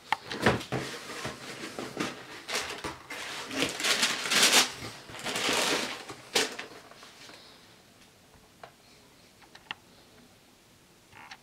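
Rustling and handling of a shoebox's contents as the shoes are unpacked: crinkling and light knocks for about seven seconds, loudest in the middle, then a few faint clicks.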